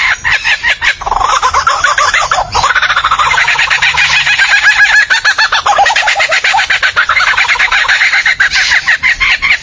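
A bird calling without pause in a rapid run of varied notes, clucking and crowing-like.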